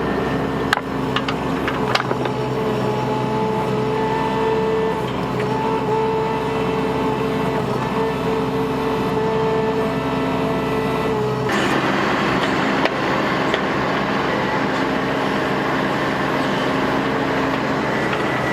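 Bobcat mini excavator's diesel engine running steadily as it digs, with a few sharp clanks in the first couple of seconds. About eleven seconds in, a harsher hissing noise joins the engine sound.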